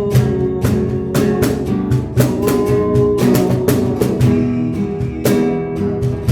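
Instrumental music: a strummed guitar with sustained chords over a steady, even beat.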